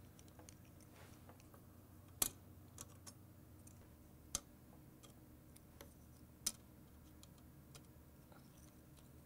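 Blank metal dog tags clicking lightly against a metal template as they are set into its cut-outs one by one: a few sharp, irregularly spaced ticks.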